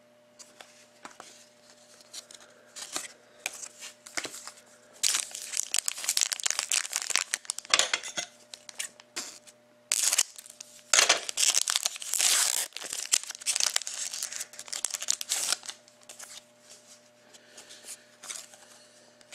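Hockey card pack wrapper being torn open and crinkled, in two main spells of crackling with short clicks in between.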